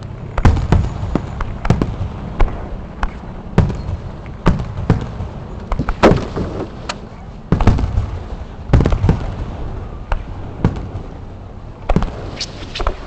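Aerial fireworks bursting in irregular succession, about one or two sharp bangs a second, over a low rumble.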